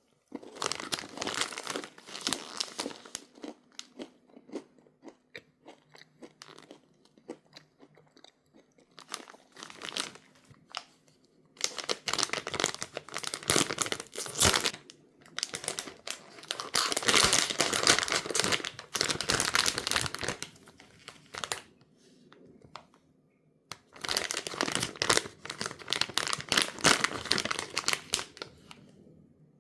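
Crunchy snacks being chewed and plastic snack packaging crinkling, in several bursts a few seconds long with short pauses between.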